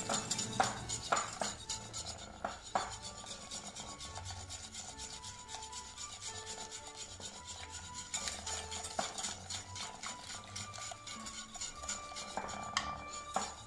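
Wire whisk beating egg yolks in a glass bowl, the wires scraping fast and steadily against the glass as milk from the pot is ladled in. A few sharper knocks of the metal ladle come in the first seconds and near the end.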